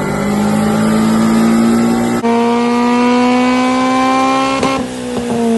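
Honda Civic Type R EP3's four-cylinder engine revving hard, its pitch climbing steadily for over four seconds, then breaking off and falling away near the end.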